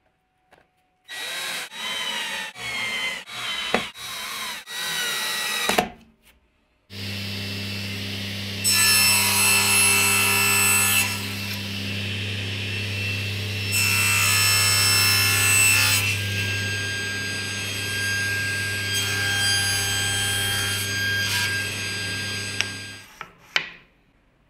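A cordless drill-driver runs in about six short bursts, driving screws into an aluminium track on a plywood part. Then a table saw starts and runs with a steady hum, cutting through wood in a few passes, two of them louder and a couple of seconds each, before it switches off near the end.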